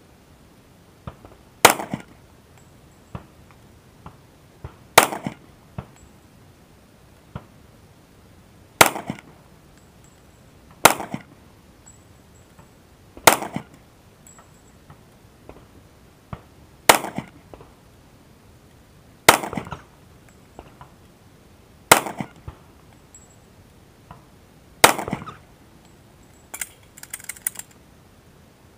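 Pistol shots fired one at a time, nine in all, spaced about two to four seconds apart, each a sharp crack with a short tail. Fainter pops and clicks come in between.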